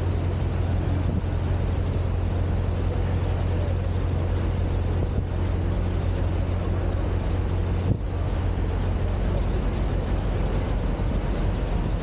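Boat engine running with a steady low drone under a constant hiss of wind and water; the drone shifts slightly about eight seconds in.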